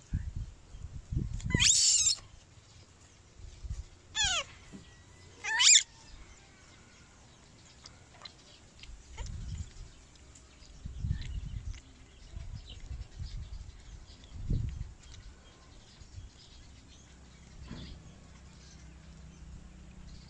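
Baby monkey giving three short, shrill cries in the first six seconds, the loudest about two seconds in. Soft low thumps follow.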